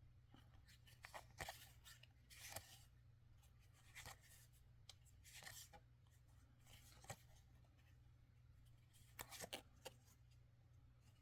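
Faint rustles and soft slaps of trading cards being handled and flipped through by hand: a scattered handful of brief sounds a second or more apart, with a small cluster near the end, over a low steady hum.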